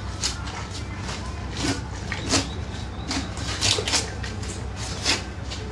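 Knife and gloved hands working a large fish's fillet away from the backbone, making a series of irregular sharp scrapes and rips over a steady low hum.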